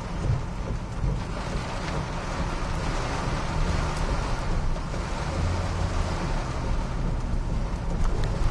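Hurricane wind and heavy rain heard from inside a moving vehicle: a steady rushing noise over a deep, continuous rumble.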